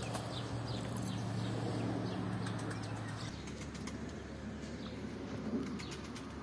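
Birds chirping in short, high, falling notes scattered through, over a steady low hum that drops in pitch about three seconds in.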